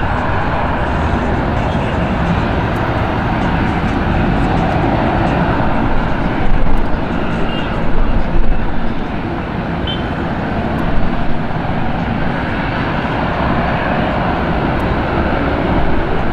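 Jet engines of a taxiing Boeing 737 MAX 8 (CFM LEAP-1B turbofans) running at taxi power, a steady rushing hum that swells briefly a few times about halfway through.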